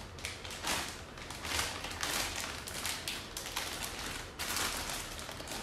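Clear plastic bag crinkling and rustling in irregular handling noises as it is pulled open and a packed ornament is worked out of it.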